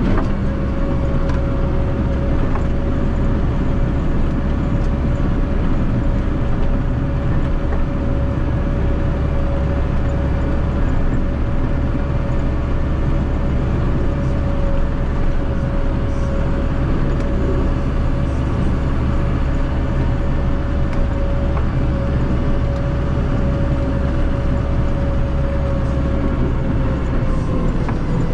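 Massey Ferguson 5445 tractor's 4.4-litre Perkins four-cylinder common-rail diesel running steadily with a deep rumble and a steady whine, which drops slightly in pitch near the end.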